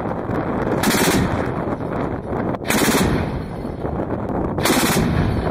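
ZU-23-2 towed twin-barrel 23 mm anti-aircraft autocannon firing three short bursts about two seconds apart, with a heavy continuous rumble between them.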